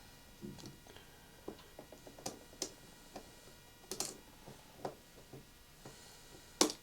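Irregular light clicks and taps of small hand tools and small phone parts being handled during smartphone disassembly, about a dozen scattered through, the sharpest near the end.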